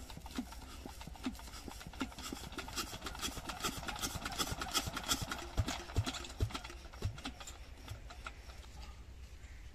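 Old single-cylinder diesel engine being cold-started with a burning rag held at it, clattering and knocking irregularly without settling into an even beat. A few heavier thumps come in the second half.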